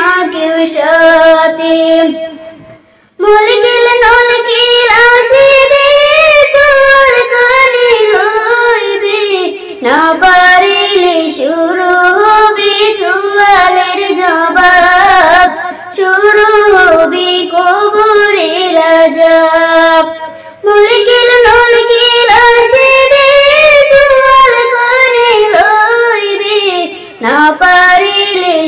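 A woman singing a Bengali Islamic devotional song (gojol) in long, melismatic phrases with held notes and brief pauses between lines.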